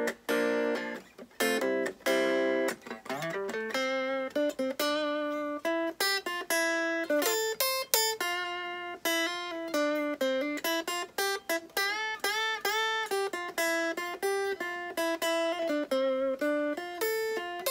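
Electric guitar played with a clean tone: a few strummed chords and a slide up, then a single-note lead line in D minor, the notes picked one after another and sometimes slid into.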